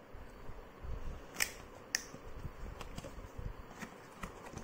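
Cardboard shipping box being opened by hand: flaps rustling and crackling, with sharp clicks, the loudest two about one and a half and two seconds in.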